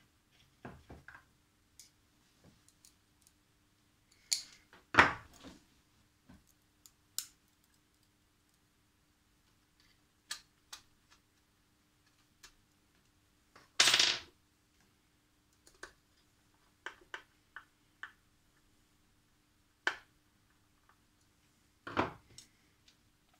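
Scattered clicks, taps and rustles of hands working inside the open metal chassis of an ICOM IC-756 Pro III transceiver, refitting a board and pushing cable connectors home. There are three louder knocks or scrapes: about five seconds in, in the middle, and near the end.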